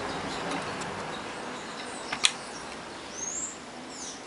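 A single sharp click about two seconds in as the small plastic selector-switch piece is handled, over a steady background hiss. A faint bird chirp comes a little after three seconds.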